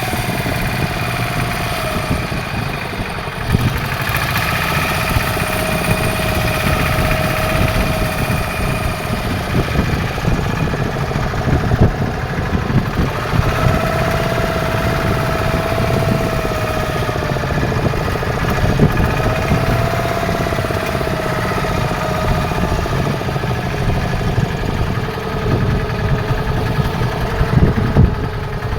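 Fishing boat's engine running steadily, a low drone with fainter higher tones that waver slowly.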